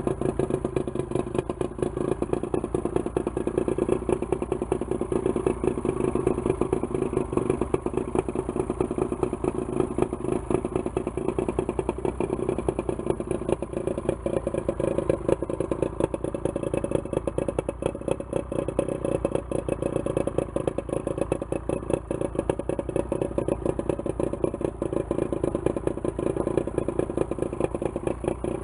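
1973 Johnson 50 hp two-stroke outboard motor running steadily with its cowling off, cooled by a garden hose while out of the water.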